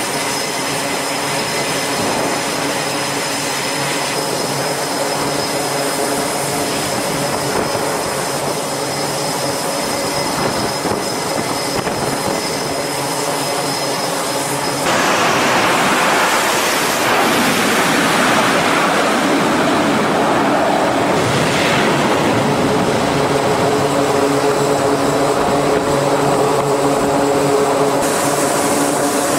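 F/A-18 fighter jet engines running on a carrier flight deck: a steady whine over a rushing roar. About halfway through a louder rush of jet noise sets in and sweeps in pitch.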